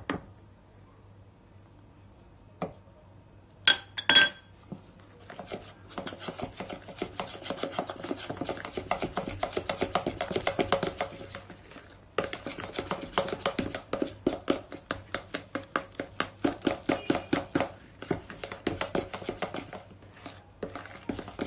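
A utensil beating cake batter by hand in a bowl, mixing in cocoa powder: a few sharp clinks against the bowl about three to four seconds in, then rapid rhythmic scraping and slapping strokes, several a second, with a short pause midway.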